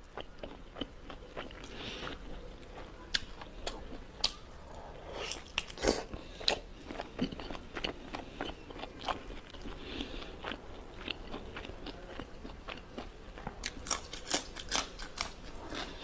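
A person chewing and biting food close to the microphone: irregular crunches and wet clicks.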